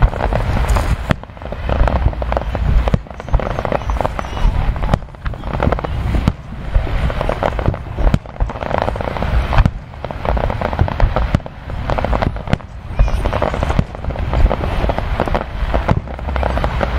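Fireworks display: aerial shells bursting with a sharp bang every second or two, over a continuous rumble and crackle of the show.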